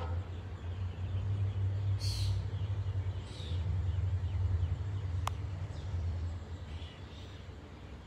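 Wind gusting on the microphone, a low uneven rumble that swells and eases off near the end, as it moves the tree leaves. A couple of short bird calls come about two and three and a half seconds in, and a sharp click a little after five seconds.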